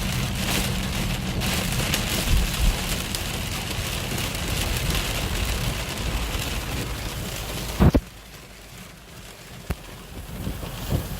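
Heavy rain pouring down, a steady hiss and patter. About eight seconds in a sharp knock is heard and the rain sound becomes much quieter.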